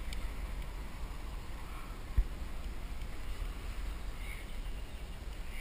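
Low steady rumble of wind on the microphone of a kayak-mounted camera, with one dull knock about two seconds in.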